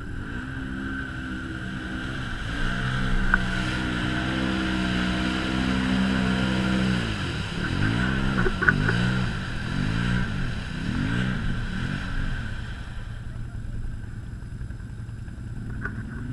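Can-Am Maverick Sport XMR side-by-side's V-twin engine working in deep mud and water: a steady engine note, then about five quick revs up and down as the machine churns and bogs down in the hole, settling to a lower note before rising again at the end.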